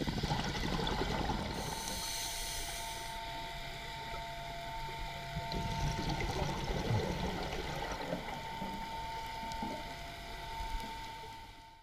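Muffled underwater sound through a GoPro HERO4 Silver's dive housing: a scuba diver's breathing and bubbles, with a brief hiss about two seconds in and a thin steady tone, cutting off suddenly at the end.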